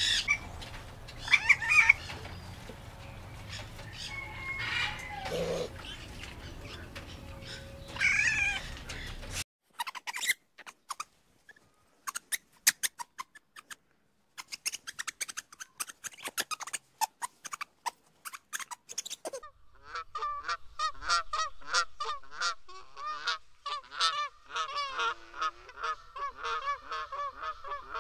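Black-necked swans calling in the last third, a rapid run of short repeated honking notes. Before that come several seconds of noise with a few loud sharp sounds, then a quiet stretch of scattered faint clicks.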